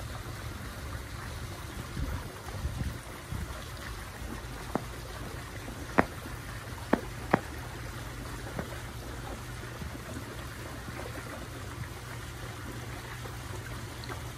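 Steady background noise with a low hum, broken by a few sharp taps around the middle, the last two in quick succession.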